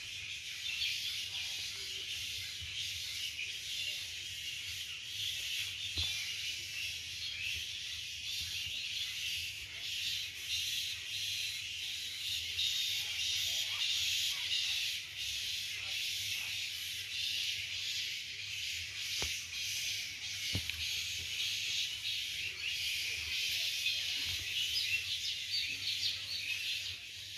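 Steady high-pitched buzzing of an insect chorus, with a few bird chirps over it.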